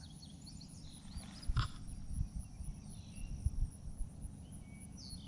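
Birds giving short, looping chirps several times over an uneven low rumble with a few soft thumps.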